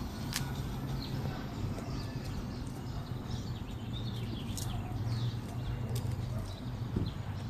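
Small birds chirping in short calls over a steady low hum, with a few faint clicks.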